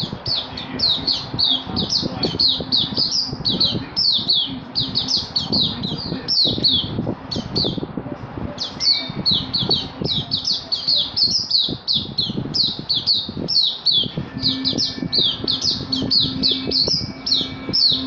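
Caged oriental white-eye singing a long, rapid song of high, down-slurred notes, several a second, broken by a few short pauses.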